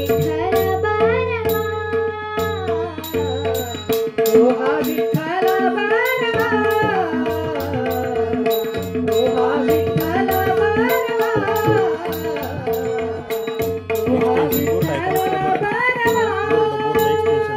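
A young girl singing a Marathi devotional abhang in long, gliding phrases, accompanied by tabla strokes and a steady held drone note underneath.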